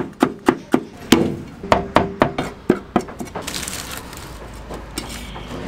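Cleaver chopping meat and green chili peppers on a thick wooden chopping block: quick, sharp knocks about four a second for roughly three seconds, then a short scrape as the blade gathers the chopped filling.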